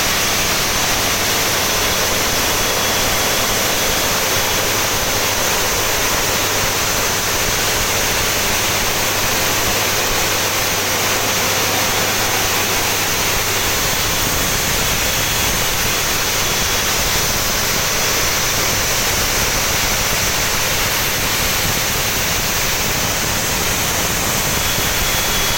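Steam turbine power plant running: a loud, steady rushing roar with a strong high-pitched steam hiss and a faint high whine that comes and goes.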